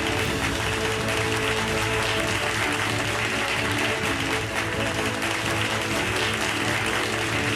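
Background music with steady held tones, under continuous audience applause.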